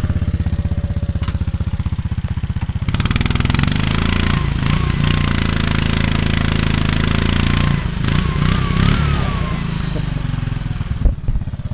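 Mototaxi's small motorcycle-type engine labouring under load as it climbs a difficult stretch of road. It works harder and louder from about three seconds in, easing off near eight seconds.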